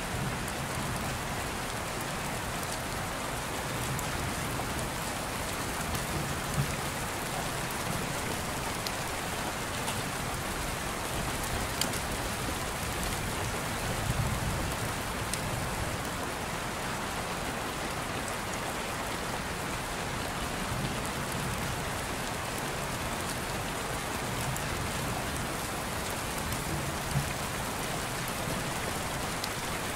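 Steady rain, an even hiss with scattered drop clicks and a few brief louder knocks.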